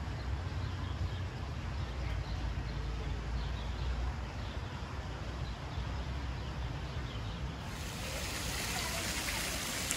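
Steady outdoor background noise: a low rumble under an even hiss. About eight seconds in it changes abruptly to a brighter, hissier noise.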